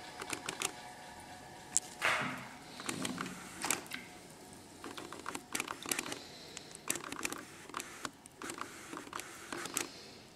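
A ceramic tile being picked up and moved about on the bed of a tile-cutting wet saw: irregular light clicks, taps and scrapes, with a longer scrape about two seconds in.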